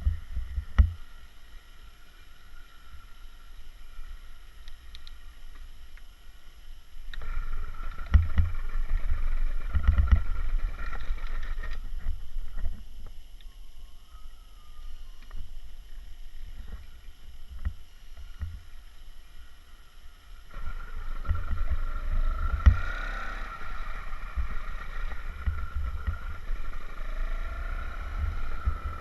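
80cc two-stroke motorised bicycle engine running while the bike is ridden, with wind buffeting the microphone. The engine and wind grow louder for a few seconds about a quarter of the way in, and again for most of the last third.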